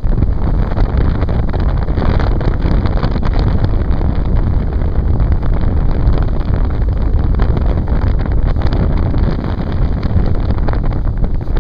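Steady wind buffeting the microphone over a speeding 19-foot Pro-Line motorboat, its engine and hull running at about 38 mph across the water.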